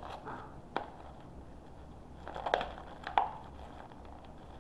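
Plastic toy packaging being handled: a few sharp crackles and clicks, the loudest about two and a half and three seconds in.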